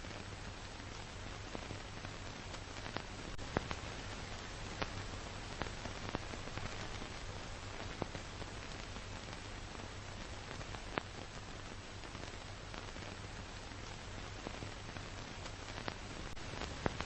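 Steady hiss and low hum with scattered clicks and pops: the surface noise of an old film's soundtrack that carries no recorded sound.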